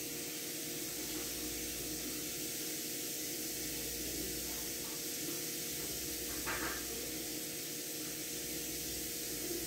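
A steady hiss over a faint low hum, with a brief faint sound about six and a half seconds in.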